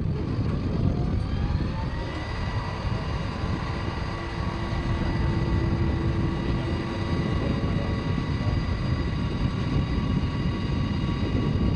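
Heavy engine running steadily with a deep rumble and a high whine that climbs over the first two seconds and then holds.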